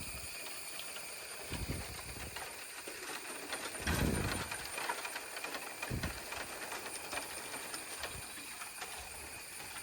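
Bamboo stems in a bamboo grove rubbing against one another, creaking and groaning in a few irregular bursts, the loudest about four seconds in. A steady high chorus of insects goes on underneath.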